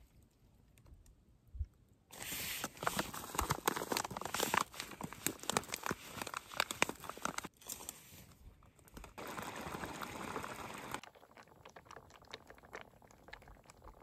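Crinkling and rustling of a self-heating meal kit's plastic-and-foil pouch being handled. It starts about two seconds in and goes on in dense crackles, with a short lull past the middle and fainter rustles near the end.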